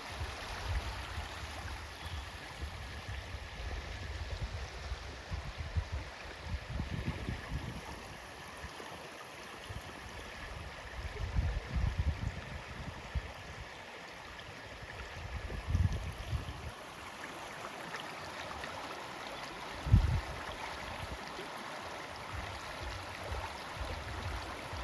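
A stream flowing steadily, with irregular low rumbling bumps, the loudest about twenty seconds in.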